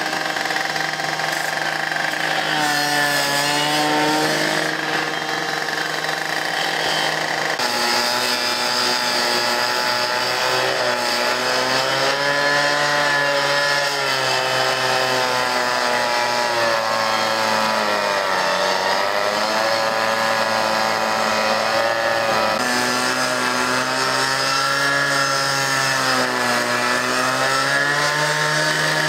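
A gas-powered rotary rescue saw (cut-off saw) running hard and cutting through metal. Its engine note rises and sags again and again as the blade bites and eases off.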